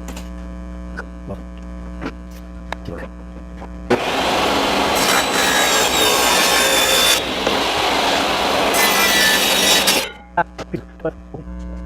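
A saw cutting through a sheet of plexiglass for about six seconds, starting and stopping abruptly about four and ten seconds in. Before it, a steady electrical hum with light handling clicks.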